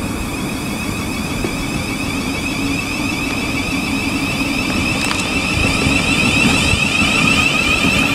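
Thameslink Class 700 electric multiple unit pulling away, its traction equipment giving a steady high whine over a low rumble of wheels on the track. It grows louder in the last few seconds as the end of the train comes past.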